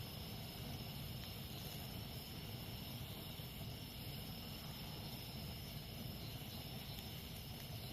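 Campfire burning with a steady low rumble and a few faint crackles, over a steady high chirring of jungle insects.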